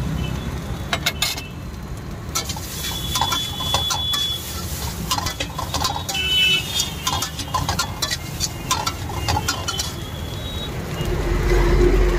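Steel spatula clanking and scraping against an iron wok again and again as fried rice is stirred and tossed, with a few short metallic rings. A steady low rumble runs underneath.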